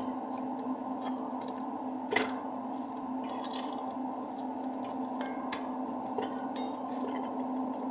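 Steady low kitchen hum with scattered light clicks and taps of utensils on a cast iron pan where bread is toasting.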